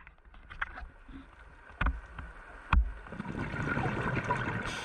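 Underwater sound of a scuba diver's breathing: a few sharp clicks during a quiet breath in, then a rush of exhaled bubbles from the regulator building from about three seconds in and easing off near the end.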